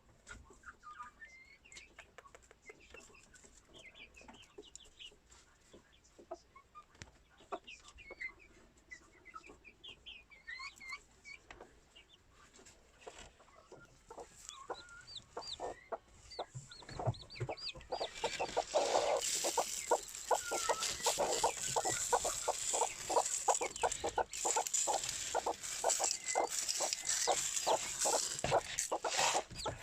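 Serama bantam hens clucking with chicks peeping. About two-thirds of the way in, a louder, dense run of rapid clicking and scratching joins them.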